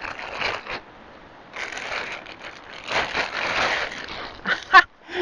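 Plastic bag crinkling as a bare-root rose is worked out of it: a short rustle, a pause, then about three seconds of continuous crinkling.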